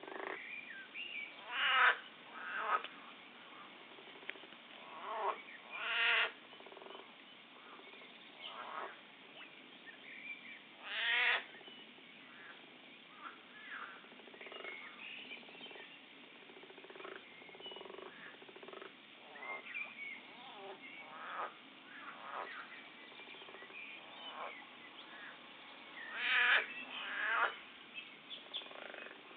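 Frogs croaking: every few seconds a louder, rapidly pulsed croak of about a second stands out over a steady chorus of fainter calls.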